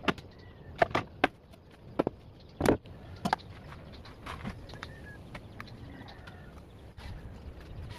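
Sharp knocks and clacks of tools and plywood being handled: a cordless drill and a plastic concealed-hinge jig set down on a plywood cabinet top and a plywood door moved, with about seven knocks in the first three and a half seconds, the loudest about two and a half seconds in. After that only faint handling of the steel hinges on the door panel.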